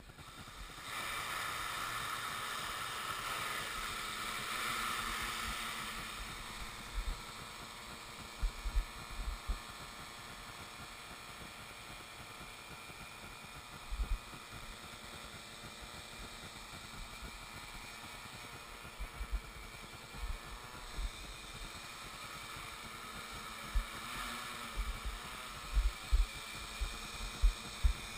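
A Y6 coaxial hexacopter's six electric motors and propellers whirring. They spin up about a second in, then the pitch rises and falls as the throttle changes in flight. Occasional short low thumps cut through.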